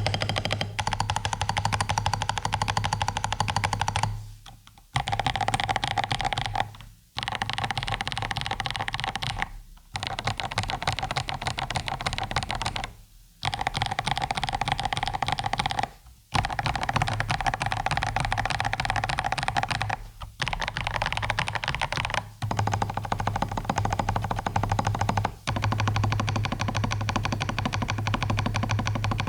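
Fast typing on an Akko 5075S gasket-mount mechanical keyboard fitted with CIY Naraka and Leobog linear switches and PBT keycaps: a dense run of keystroke clicks in bursts separated by brief pauses. It is a sound test of the two switch types; the builder finds the Leobog clackier and the CIY Naraka more thocky.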